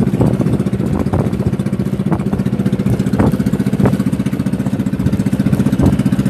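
Small motorboat engine running steadily under way, with a fast, even throb.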